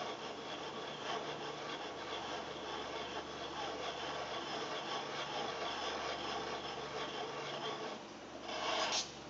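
Two wine glasses swirled in circles on a board to agitate the water inside, their glass bases rubbing and scraping steadily across the surface. A short louder rush comes near the end.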